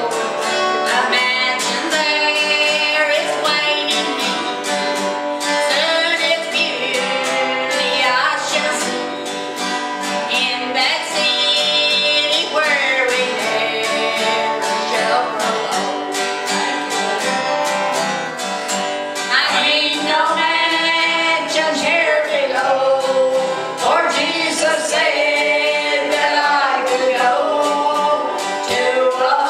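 A small group singing a gospel song in harmony, accompanied by a strummed acoustic guitar.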